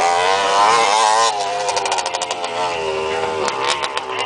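125cc Yamaha trail motorcycle's single-cylinder four-stroke engine revving under riding, its pitch rising and falling with the throttle. It is loudest in the first second or so, eases off, then climbs again.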